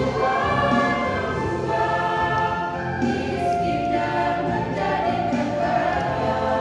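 Mixed choir of women's and men's voices singing a hymn together in sustained, shifting chords.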